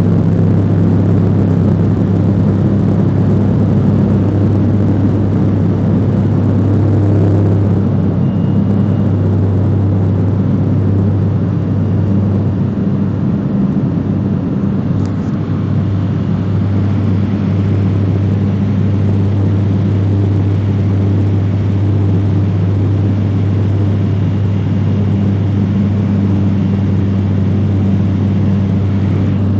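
De Havilland Canada DHC-2 Turbo Beaver floatplane's turboprop engine and propeller running, a steady deep drone heard from inside the cabin.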